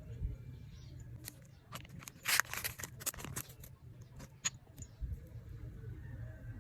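Small plastic packaging and items being handled: a quick run of crackling clicks and crinkles, loudest about two and a half seconds in, then a few separate clicks, over a low steady hum.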